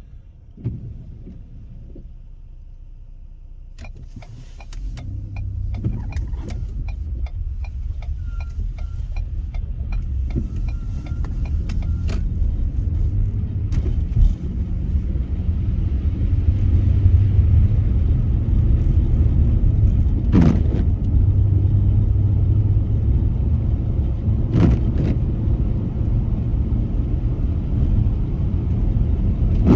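Car driving on a snowy road, heard from inside the cabin: a steady low road-and-engine rumble. It is quieter for the first few seconds, then grows louder as the car picks up speed. A run of light clicks comes early, and two thumps come later, from bumps over clumped snow.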